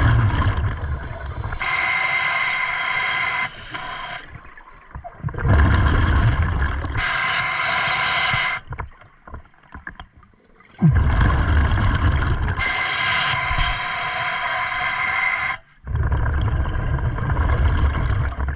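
Scuba diver breathing through a regulator underwater: a low bubbling rumble on each exhale alternates with a hissing inhale, with short pauses between breaths, about three breath cycles.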